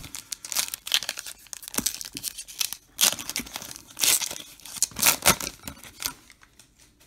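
Foil wrapper of a Topps Star Wars Battle Plans trading card pack being torn open by hand. It crinkles and rips in a series of bursts, then dies down near the end.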